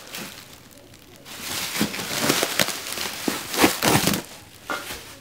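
Plastic bags and foam packing material rustling and crinkling as they are pulled and handled by hand, with sharp crackles, starting about a second in and loudest just before the end.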